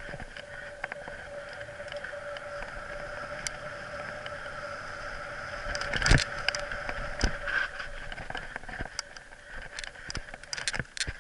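Mountain bike ridden along a dirt singletrack: a steady rush of tyres rolling on dirt and air past the camera, broken by short clicks and knocks as the bike goes over bumps, with a hard jolt about six seconds in and a run of knocks near the end.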